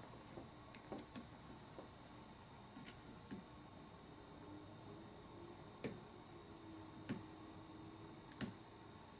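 Faint, irregular clicks and ticks of a hook pick and tension wrench working the pins in an American Series 50 padlock during single-pin picking, about nine in all, the loudest near the end.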